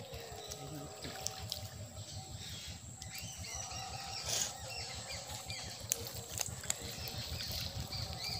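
Quiet outdoor ambience with small birds chirping, a cluster of short calls about three to four seconds in and a few more near the end.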